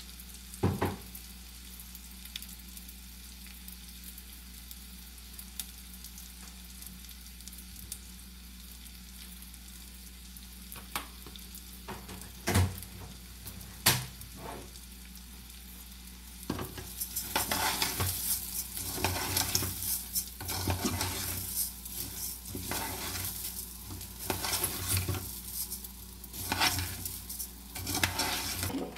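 Rice frying in oil in a pot: a low steady sizzle with a few knocks at first, then, from a little past halfway, a spoon stirring the rice, with louder crackling sizzle and scraping in repeated strokes.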